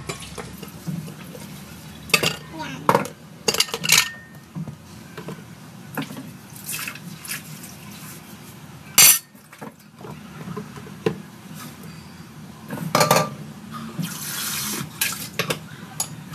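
Dishes washed by hand in a sink: a sponge scrubbing a stainless steel bowl, water splashing, and bowls and plates clinking and clattering against each other several times.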